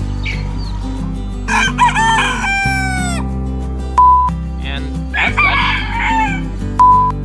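Rooster crowing twice, each crow about a second and a half long and ending in a long falling tail. Between and after the crows come two short, steady high-pitched beeps like a test-card tone, over a steady low background.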